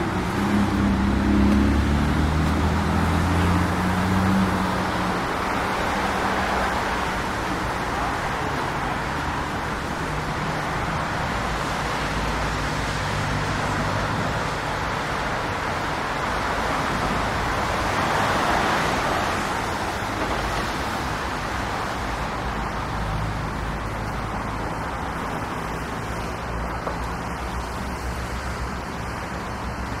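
Road traffic: cars driving past, with a vehicle's engine heard close by in the first few seconds and another car swelling past about eighteen seconds in.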